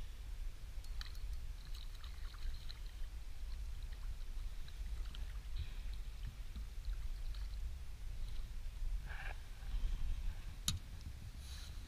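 Wind rumbling on the microphone, with light water lapping and small clicks from the inflatable boat, and a short splash about nine seconds in.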